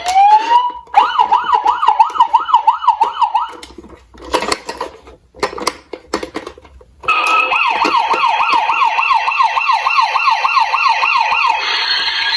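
Electronic emergency-vehicle siren in a fast up-and-down yelp of about three sweeps a second. It winds up at the start and yelps for a couple of seconds, then a few scattered clicks and knocks fill a break of about three seconds. It yelps again and stops shortly before the end.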